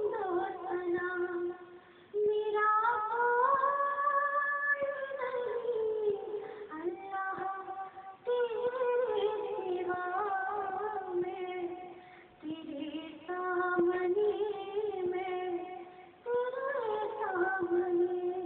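A woman reciting a naat, a devotional Urdu song, in a melodic solo voice, sung in long drawn-out phrases with short pauses for breath. It is heard through a television's speaker, so it sounds thin, with the high end cut off.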